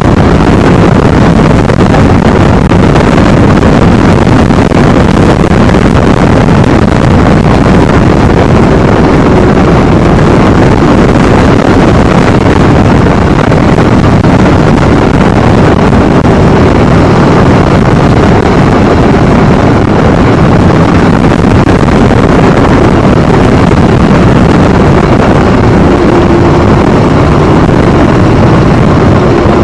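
Harley-Davidson V-twin motorcycle running at road speed, engine drone mixed with steady wind rush on the microphone.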